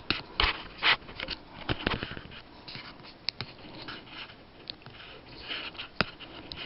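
Plastic action figure handled by hand as its arms are worked through their joints: scattered small clicks and light rustling.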